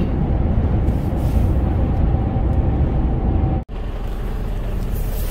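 Steady low engine and road rumble inside a moving truck's cab. It cuts off abruptly about three and a half seconds in and gives way to a slightly quieter, steady low rumble.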